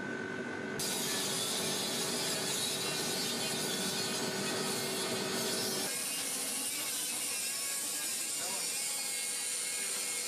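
A hand-held electric power tool running steadily against the carcass, a dense whirring rush with a grinding rattle. Its sound changes about six seconds in.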